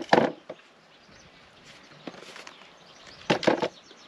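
Sharp knocks and clatter of tools being handled against wooden boat timbers: a loud cluster right at the start and another about three and a half seconds in.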